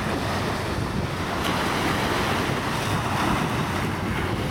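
Wind buffeting the microphone over small waves washing onto a sandy beach, a steady noisy rush with a choppy low rumble.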